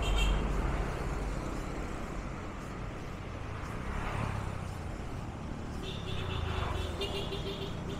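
Road traffic passing close by: a truck goes by at the start with a loud low rumble that fades within the first second, then steady traffic noise with motorcycles. About six seconds in, a rapid high-pitched chattering joins in.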